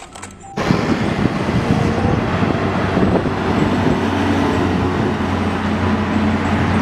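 Concrete mixer truck's engine running as it drives along a city street, with traffic noise around it; the sound comes in abruptly about half a second in, with a steady low engine hum under it.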